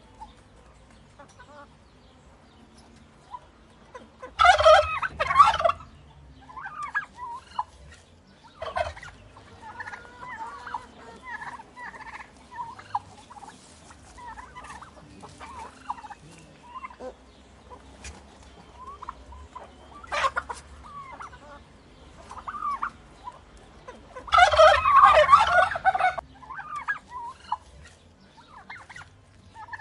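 Domestic turkeys calling: a tom gobbles loudly about four seconds in and again near the end, with a shorter gobble in between, and softer clucks and chirps from the flock throughout.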